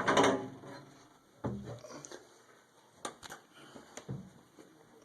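Steel storm shelter's latch lever and lid being worked: a loud clatter right at the start, then a few scattered metal knocks and clunks.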